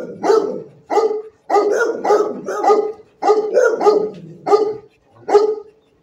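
A dog barking repeatedly, about a dozen barks in quick runs of two or three with short pauses between.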